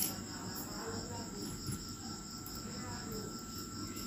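Faint steady insect trill, a high-pitched sound pulsing evenly several times a second, with a soft click at the start.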